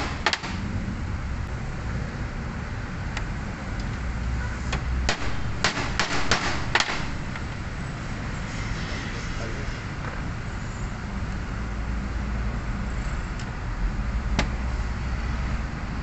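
Scattered sharp clicks and knocks of parts and tools being handled while fitting a steering rack back together, clustered about five to seven seconds in with a single click near the end, over a steady low rumble.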